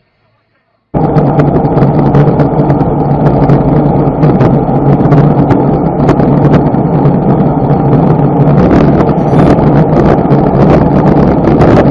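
Vehicle engine running steadily at road speed, heard from the moving vehicle itself, with wind buffeting the microphone. It cuts in abruptly about a second in.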